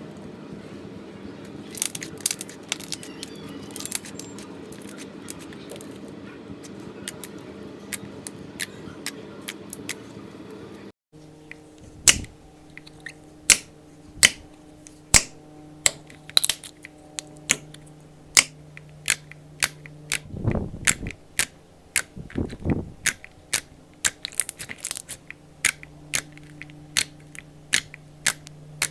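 Slime being worked by hand, crackling and popping. After a cut about a third of the way in, sharp crunchy pops come at a regular pace of about one and a half a second, over a steady low hum.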